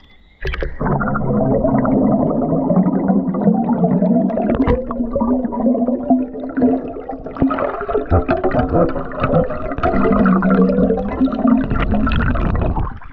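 Muffled rushing and gurgling of river water heard through an action camera held underwater, starting suddenly about half a second in and cutting off suddenly at the end.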